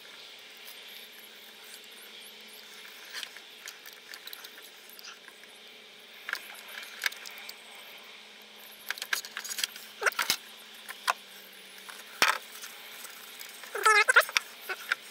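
Wire strippers and side cutters working a multicore wiring-loom cable: scattered sharp clicks and snips with a cluster of them a little after the middle, and a few squeaks near the end.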